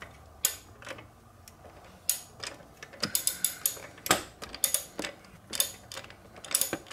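Ratchet wrench with a swivel extension and 17 mm socket, clicking in short irregular runs as it turns out the fitting of a turbocharger's coolant (water) line.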